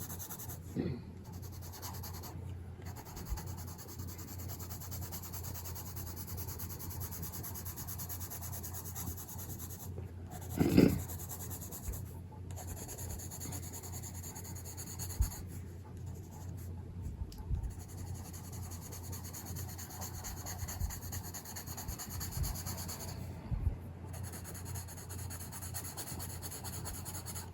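Stabilo Aquarelle watercolour pencil scratching and rubbing on paper as a page is coloured in, with one brief low thump about eleven seconds in.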